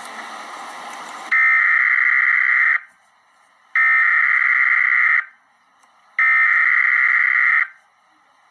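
Emergency Alert System SAME header: three harsh digital data bursts, each about a second and a half long and a second apart, following about a second of hiss. These coded bursts open the alert, ahead of the attention tone.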